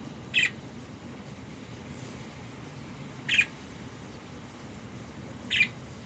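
Budgerigar giving three short, high calls, a couple of seconds apart.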